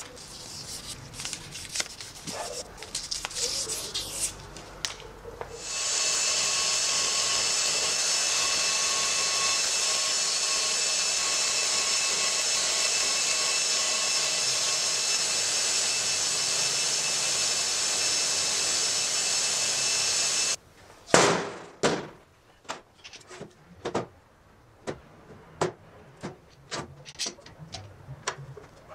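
Sandpaper rubbing and scraping over the steel head of a hammer held in a bench vise. About six seconds in, a power tool's spinning wire wheel starts and runs steadily with the hammer head pressed against it, then stops abruptly. A loud knock and a run of clicks and taps follow as a wooden board is set on the bench and a bar clamp is tightened on it.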